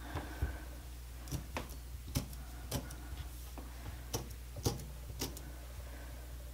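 Fork stabbing raw potatoes on a countertop to pierce the skins: a series of sharp clicks and taps, roughly two a second, at an uneven pace.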